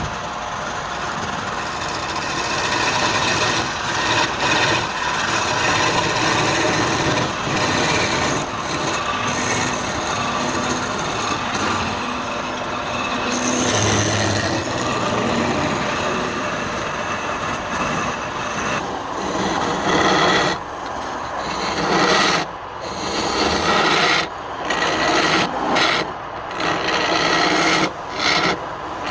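Wood being worked on a lathe: a tool rubbing and scraping against the spinning wood with a steady rasping noise. In the last third it breaks into separate strokes with short gaps between them.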